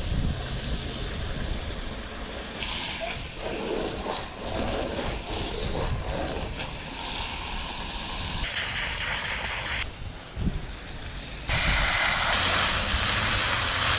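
Garden hose spraying water onto plants, a steady hiss that drops away and comes back abruptly several times, with wind rumbling on the microphone.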